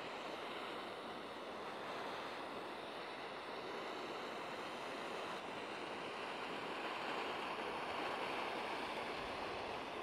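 Gas torch flame hissing steadily as it chars the top of a wooden fence post.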